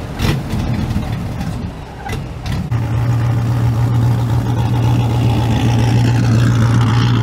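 A large truck engine running loud: about three seconds in it settles into a strong, steady low drone held at constant revs, with a rising hiss over it toward the end.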